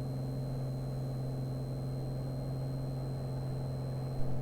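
Single-engine Piper Arrow's engine and propeller running at climb power just after lift-off: a steady, even drone.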